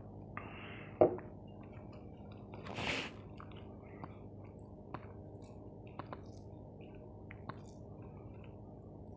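Close-miked eating sounds of chicken curry and rice: wet squishing and chewing, with a sharp click about a second in, a louder noisy burst near three seconds, then a few small clicks.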